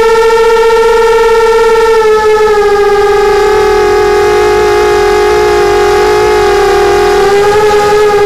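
Brushless motors and propellers of a Mini 250 FPV quadcopter, heard from its onboard camera, whining steadily as it flies. The pitch drops slightly about two seconds in as the throttle eases and climbs again near the end.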